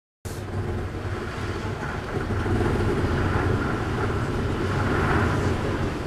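Strong typhoon wind blowing in gusts and buffeting the microphone, swelling louder from about two seconds in.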